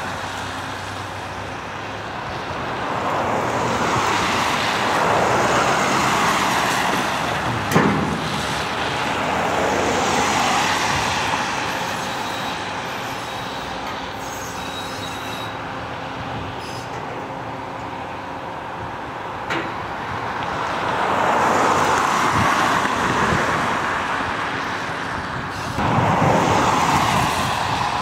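Road traffic passing, several vehicles swelling up and fading away one after another over a faint steady hum, with two sharp knocks, one about eight seconds in and one near the twenty-second mark.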